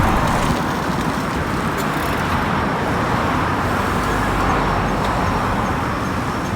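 Steady road-traffic noise from cars passing on a street, mixed with strong wind blowing over the microphone as a typhoon approaches.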